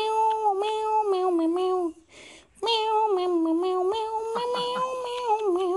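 A voice humming a wordless tune in long held notes that step up and down, as mouth-made background music; it breaks off about two seconds in and resumes with a second phrase.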